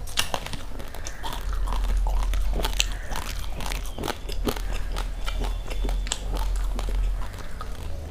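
Uncooked rice grains crunched and chewed close to the microphone: many irregular sharp cracks as the hard grains break between the teeth, over a steady low rumble.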